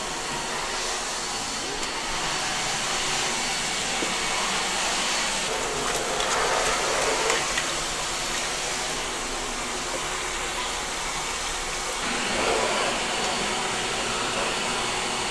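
Canister vacuum cleaner running steadily with its hose and wand drawn over the floor; its sound changes slightly about twelve seconds in.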